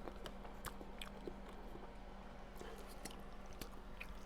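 Faint close-up chewing with scattered soft clicks, over a steady low hum.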